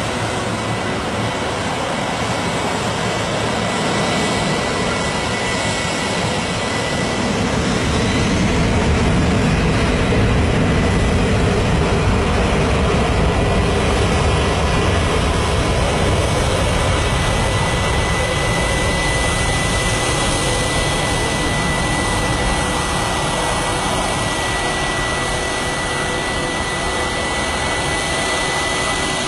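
Jet aircraft engines running: a steady, loud rush of engine noise with a thin high whine, swelling for a few seconds in the middle.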